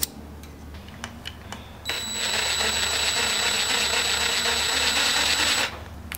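Cordless impact driver running for almost four seconds on a screw in a metal plate, a rapid rattling hammer with a steady high whine, stopping suddenly. A few light metal clicks before it and one sharp click near the end.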